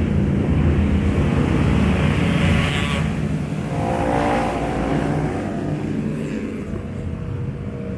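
Road traffic of motorbikes and cars driving past, a steady engine rumble with vehicles swelling by: one passes about three seconds in and a higher engine whine goes by near the middle, then the traffic fades off.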